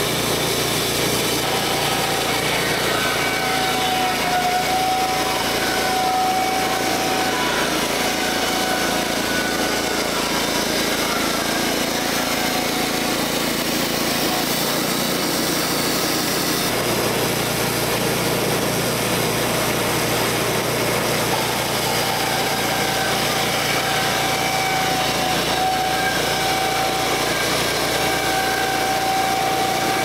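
Wood-Mizer LT10 portable band sawmill running, its gas engine droning steadily while the band blade is pushed through a board for a thin test cut. Thin whistling tones come and go over the engine noise.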